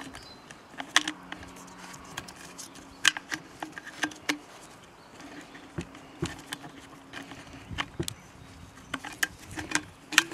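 Scattered light clicks and scrapes of a wire hook poking around inside a Stihl MS 210 chainsaw's plastic fuel tank, fishing for the fuel pickup filter, over a faint steady hum.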